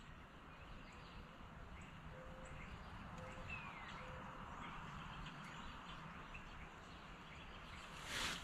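Faint outdoor ambience with a few thin, distant bird chirps over a steady low hiss, and a short burst of noise near the end.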